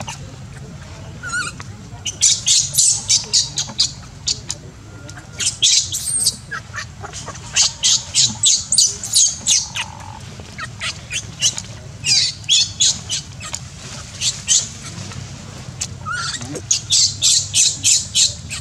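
Baby macaque screaming in distress: bouts of rapid, shrill, high-pitched squeals, about four a second, broken by short pauses.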